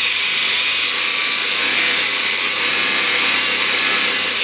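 Arrma Limitless RC car's 6S brushless motor and drivetrain whining at high revs: a high, steady whine that climbs slightly and holds.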